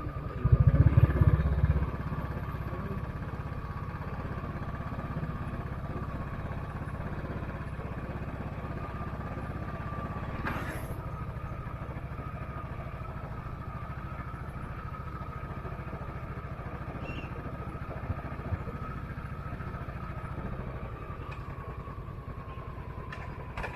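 Royal Enfield Classic 500's single-cylinder engine and exhaust under way on the move, a steady low running note that gets louder for about a second near the start as the throttle opens.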